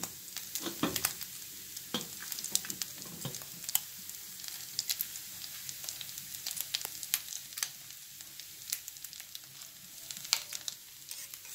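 Sausage links frying in a cast iron skillet: a steady sizzling hiss with frequent small crackling pops of spitting fat.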